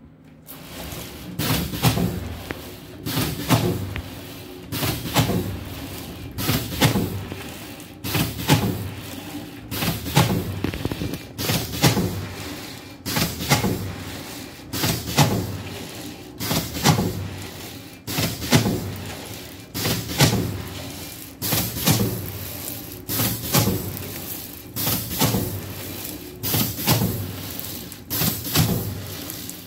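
Hookah aluminium-foil rewinder machine starting up and running, with a sharp regular knock about every second and a half to two seconds as its perforating bar strikes the moving foil web.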